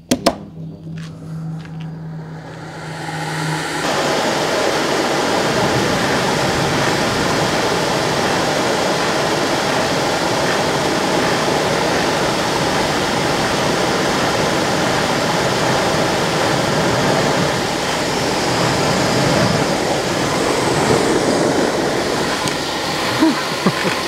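A switch clicks and a radial blower fan starts with a steady hum. About four seconds in, the diesel mist from the pressurized oil-nozzle burner catches and a loud, steady roar of flame and forced air takes over. The flame is not stable, which the builder puts down to a 2.5 gallon-per-hour nozzle too big to atomise the fuel finely.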